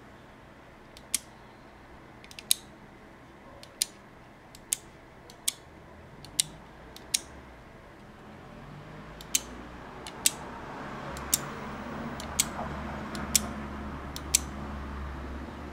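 Relays on a relay board clicking one at a time, about a dozen sharp single clicks roughly a second apart, as the wall pushbuttons switch them on and off. A low rumble grows in underneath from about halfway.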